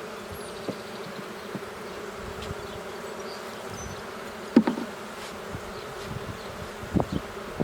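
Honeybees of an open, queenless colony buzzing steadily around the hive. Two sharp knocks cut through, the louder about four and a half seconds in and another near the end, as frames are handled.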